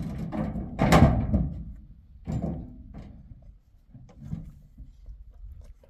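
A loud thump about a second in and a second thump a little after two seconds, followed by several smaller knocks.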